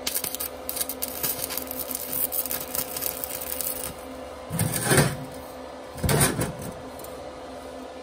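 Stick-welding arc from a small 120 A inverter stick welder, crackling for about four seconds. Then come two short, louder sputtering bursts as the arc is struck again. A steady hum runs underneath.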